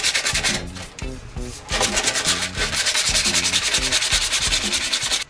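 Sandpaper rubbed by hand in fast back-and-forth strokes over sheet metal. It eases off briefly about a second in, then picks up steadily again. The edges are being scuffed to prepare the mating surfaces for soft soldering.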